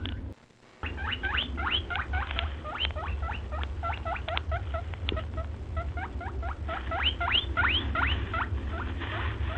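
A group of small animals squeaking: quick upward-sliding squeaks, several a second, over a steady low hum. The sound drops out briefly about half a second in.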